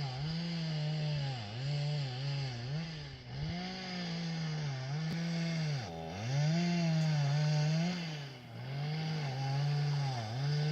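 A small engine running with a buzzing drone, its pitch dipping briefly and recovering every second or two.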